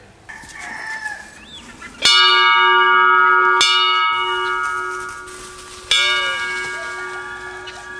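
Large brass bell struck by its clapper on a pull cord, three strikes about two, three and a half and six seconds in, each ringing on with a rich, steady tone and slowly fading.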